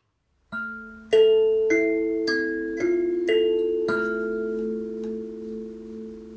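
Hokema Sansula thumb piano (a kalimba on a drum head) tuned to A: about seven thumb-plucked notes a little over half a second apart, ringing on and overlapping. The held notes then fade with a wavering wah-wah swell as the instrument is bounced up and down above a larger drum.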